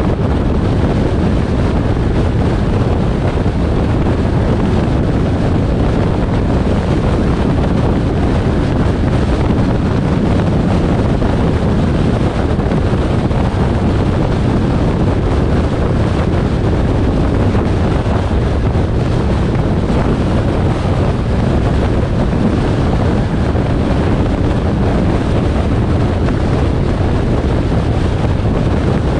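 Steady wind rush on the microphone over road and engine noise from a car being driven.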